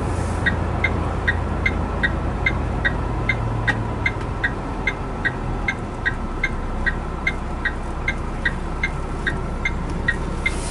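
Truck cab with the diesel engine's steady low drone, over the even clicking of a turn-signal relay, about two and a half clicks a second, as the lorry moves over toward the toll lanes.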